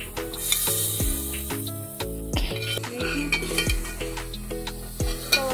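Background music with a steady beat and deep bass thumps, over a spoon stirring and a light sizzle in a steel pot of dal on a gas stove.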